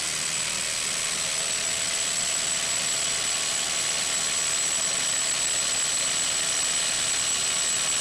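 Hercules HCB81B brushless impact driver hammering continuously at full power against a hydraulic dyno load: a steady dense rattle with a thin high whine on top, drawing heavy current under load.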